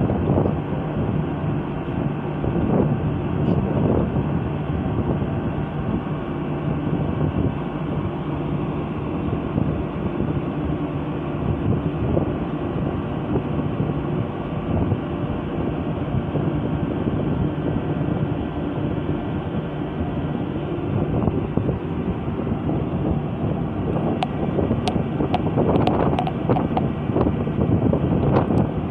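Steady rumble of a vehicle in motion heard from on board: engine and road noise. A few short clicks or knocks come near the end.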